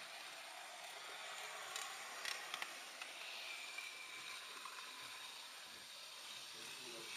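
H0-scale model train running along the track, a steady faint hiss of rolling wheels and motor. There are a few sharp clicks about two seconds in and a faint high whine for a second or so midway.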